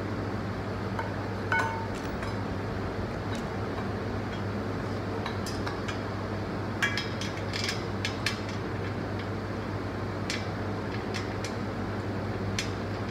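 Metal tubes and fittings of a laundry organizer frame clinking and clicking now and then as the parts are handled and joined by hand, with a cluster of clinks midway. A steady low hum lies underneath.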